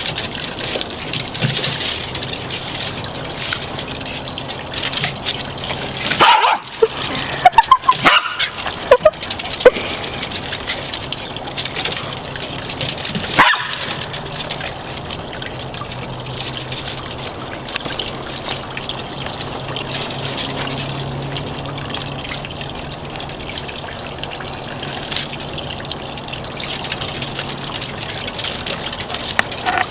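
Small dogs barking and yapping in a quick cluster of sharp barks about six to ten seconds in, with one more bark a few seconds later, over a steady rushing background noise.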